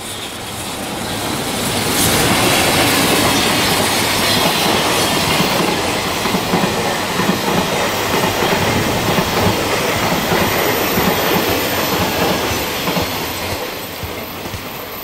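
Freight train hauled by an EF210 electric locomotive passing close by, its container wagons' steel wheels rumbling and clacking over the rails. It builds to full loudness about two seconds in and eases off near the end.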